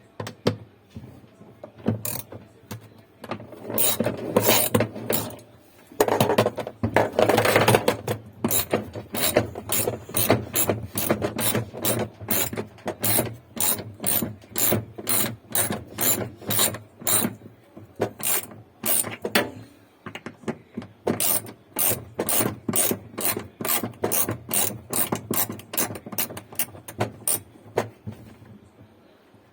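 Hand ratchet clicking in repeated strokes, about three clicks a second, as fasteners are worked on a washing machine during disassembly. A louder rubbing, scraping stretch comes about six seconds in, and the clicking pauses briefly about twenty seconds in.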